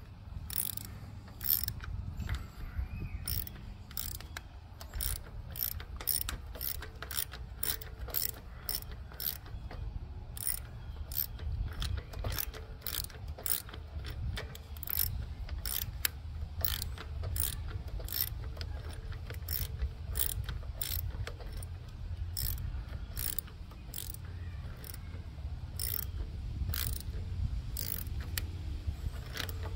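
Socket ratchet wrench clicking as it is swung back and forth to tighten the 10 mm nuts holding a small engine's air cleaner base, with about two clicks a second.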